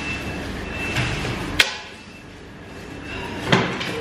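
Two sharp knocks about two seconds apart over a steady background hum; the hum drops off abruptly just after the first knock.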